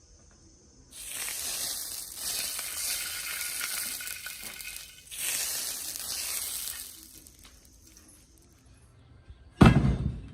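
Two spells of steady hissing, a few seconds each, followed near the end by one loud, heavy thump.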